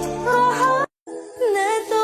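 Background pop music with a sung vocal line, cut off abruptly for a fraction of a second just under a second in, then resuming.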